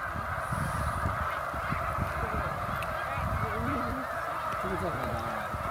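A massive flock of thousands of snow geese calling at once: a constant, dense din of overlapping honks with no gaps, over a low rumble.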